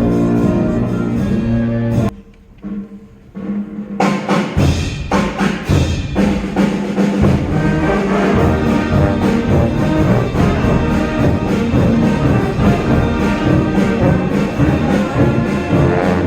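School concert band playing live: a held chord cuts off about two seconds in, there is a short near-pause, and the band comes back in and plays on.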